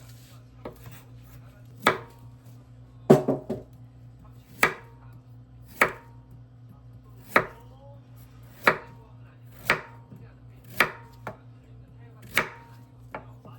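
Kitchen knife chopping on a cutting board in slow single strokes, about ten cuts spaced a second or so apart, a few with a short ring, over a steady low hum.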